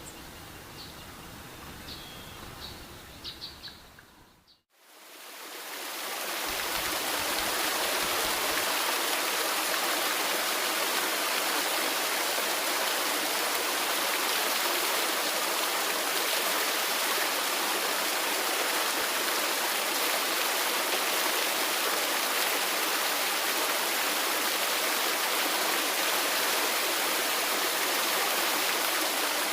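A few bird chirps fade out, and about five seconds in the steady, even rush of a waterfall fades in and holds.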